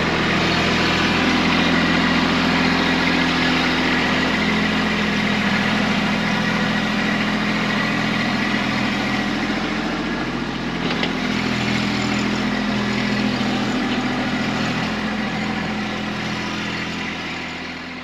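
Kubota B2301 compact tractor's three-cylinder diesel engine running steadily, easing off near the end.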